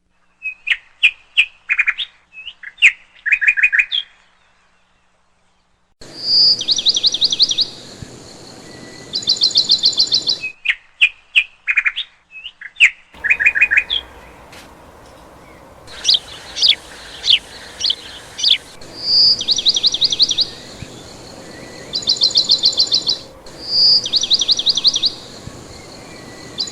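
Small songbirds chirping and singing, repeating short phrases: a single sharp note followed by a quick rattling trill, about every two seconds. Some stretches have a steady hiss behind the birds and others are clean.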